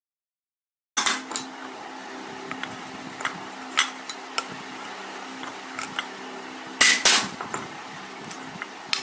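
Hammer striking the steel rivets on a cooler motor's end cover to set them: a handful of sharp metallic knocks spread out, the loudest pair about seven seconds in, over a faint steady hum.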